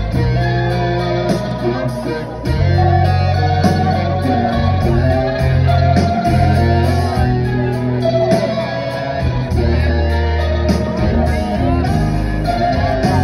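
Live rock band through a concert PA, led by a Les Paul-style electric guitar playing melodic lines over held bass notes.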